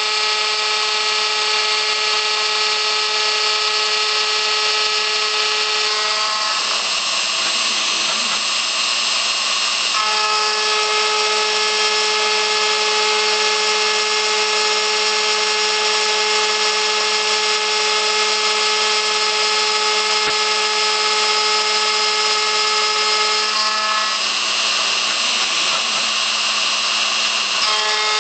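ShopBot CNC router spindle, set to speed 3 of 6, driving a 1/8-inch carbide end mill through steel plate. It makes a loud, steady ringing whine while cutting. The sound turns rougher and noisier for a few seconds about six seconds in and again near the end.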